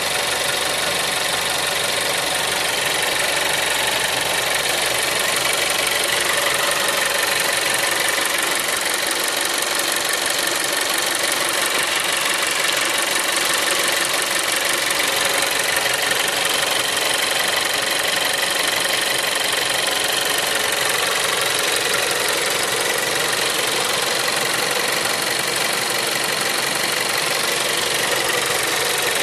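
SEAT Leon 3 (5F) 1.4 TSI 140 hp four-cylinder turbo petrol engine idling steadily.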